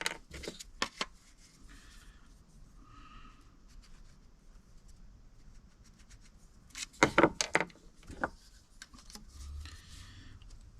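Pipe and fittings being handled and cut: scattered sharp clicks and light rubbing, with the loudest cluster of clicks about seven seconds in.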